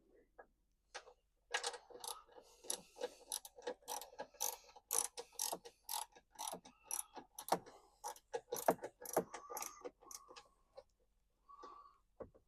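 Ratchet wrench clicking in quick, uneven runs, then stopping about two seconds before the end.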